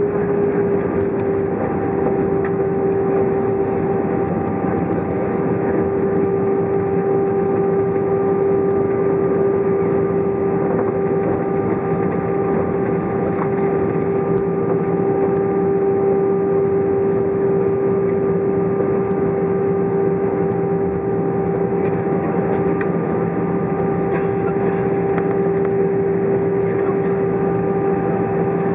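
Airbus A320's jet engines at idle heard from inside the cabin over the wing while the aircraft rolls on the ground after landing: a steady whine over an even rush of noise, the whine settling slightly lower in the first second or two.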